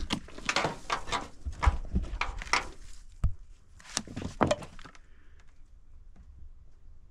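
Footsteps crunching and knocking over loose broken rock and old weathered boards, a run of crunches with a sharp wooden knock a little after three seconds, dying away about five seconds in.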